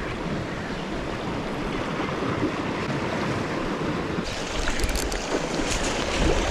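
Sea waves washing against the rocks, with wind on the microphone. About four seconds in the hiss grows brighter.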